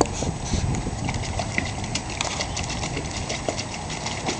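A cairn terrier pawing and splashing in the shallow water of a plastic paddling pool: a steady run of quick, irregular slaps and splashes.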